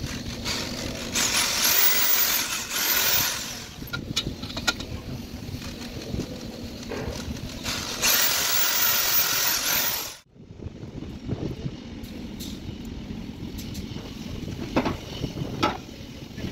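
Corded electric drill boring holes through a rubber conveyor belt for the belt's bolt-on joining clips. It runs twice for about two seconds each, its whine rising as it spins up and falling as it stops. A few light clicks come near the end.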